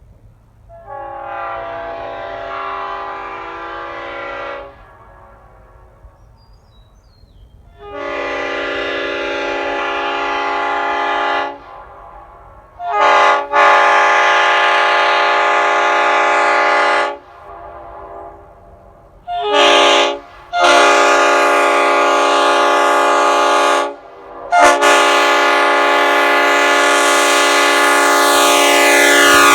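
Leslie RS5T five-chime air train horn (RS powerchambers, RRO setup) blowing its chord in about five long blasts of three to four seconds each, the first quieter and the later ones louder. Short stabs come just before several of the blasts.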